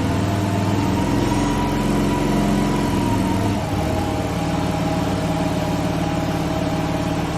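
Engine of construction machinery running steadily, its note shifting slightly about three and a half seconds in.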